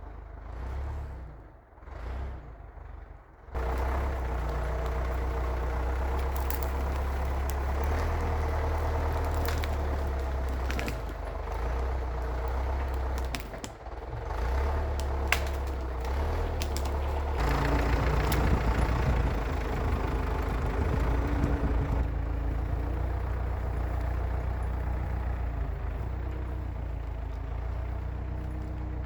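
Case 680G backhoe's diesel engine running steadily, much louder from about three seconds in, with scattered clanks and rattles as the machine drags logs.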